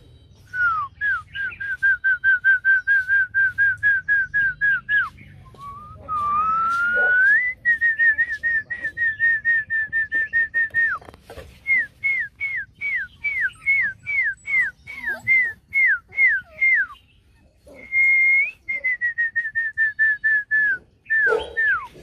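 A person whistling a quick string of short notes, about four to five a second, many dropping in pitch at the end, to draw the puppies' attention. The run is broken by a long rising whistle around six seconds in and a brief steady note near eighteen seconds.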